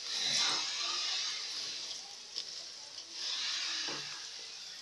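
Freshly added sliced onions sizzling in hot oil in an aluminium pot; the sizzle swells twice, with a couple of light knocks.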